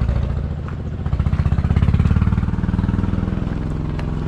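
An engine running, a low pulsing hum that gets a little louder about a second in.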